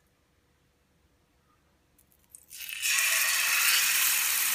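Near silence, then about two and a half seconds in a marinated seer fish steak goes into hot oil in a frying pan: a sudden hiss that settles at once into a steady, loud sizzle of frying.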